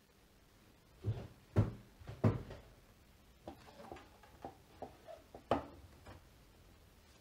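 Handling knocks and clicks as the Samsung Galaxy S10's metal frame is laid down on a silicone repair mat: three heavier thumps about a second in, then a run of lighter taps and clicks.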